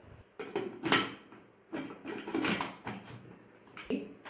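Aluminium pressure cooker being closed and moved onto a gas burner: a series of metal clanks and knocks from the lid, handles and pan, loudest about a second in, with one sharp knock near the end.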